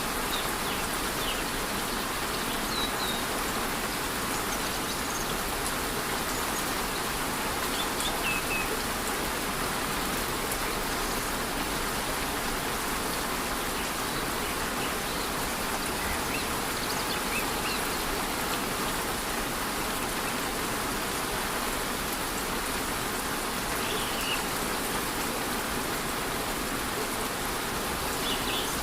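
Steady rush of a waterfall in light rain, an even hiss of falling water. A few faint, brief high chirps come and go.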